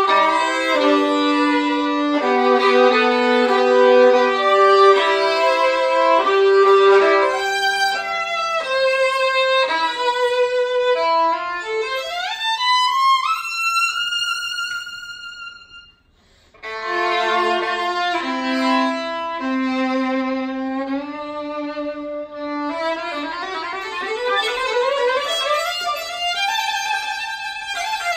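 Solo violin playing, often two strings at once, with quick runs. About halfway through, a rising glide climbs to a held high note that fades into a short pause; the playing then resumes with fast rising arpeggios.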